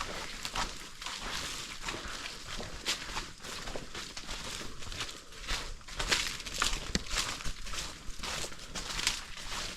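Footsteps of hikers walking along a wet, muddy dirt trail, an irregular series of soft steps about one or two a second.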